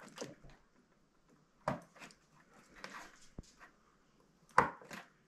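Hand-held pen-electrode spot welder firing on lithium battery cells: a sharp snap with each weld, three times (near the start, about 1.7 s in and about 4.6 s in), each followed by a fainter crack.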